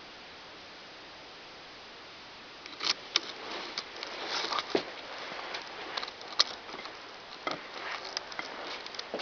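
Faint steady hiss, then from about a third of the way in, irregular sharp clicks and rustling.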